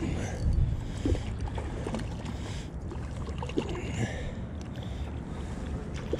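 A kayak out on the water: a steady low rumble with water against the hull, a few hissy rustles and small faint knocks.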